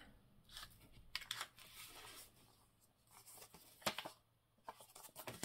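Paper being handled at a craft desk: faint rustling with a few small taps and clicks, the sharpest one about four seconds in.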